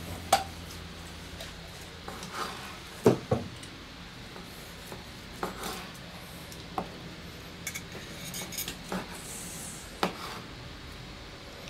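Kitchen knife slicing grilled meat on a bamboo cutting board while metal tongs hold it, the blade and tongs knocking and clicking on the wood now and then, loudest as two quick knocks about three seconds in.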